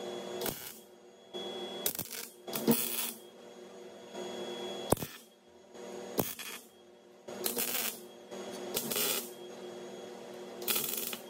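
Red magnetic welding squares clinking and scraping against steel angle iron as they are set and shifted on the frame, in short bursts with one sharp metallic click about five seconds in. A steady hum runs underneath.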